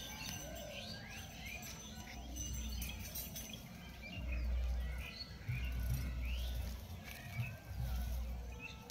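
Small birds chirping and twittering, many short calls. A low rumble comes and goes from about four seconds in.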